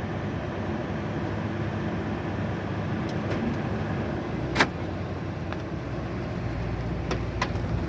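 Ford Expedition giving off several sharp, irregularly spaced clicks, the loudest about four and a half seconds in and a quick pair near the end, over a steady low hum of the vehicle running.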